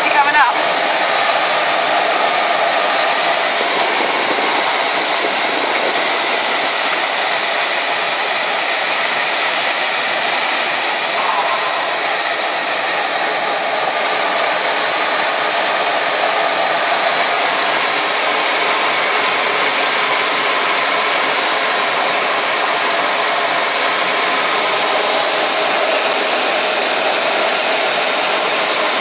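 Steady rush of airflow over the canopy of a Schleicher ASK 21 two-seat glider in flight, heard from inside the cockpit.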